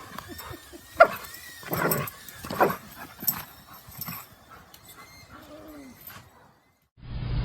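A dog vocalizing: a few short barks about two seconds in, then a brief rising-and-falling whine. The sound cuts off, and a steady noise starts near the end.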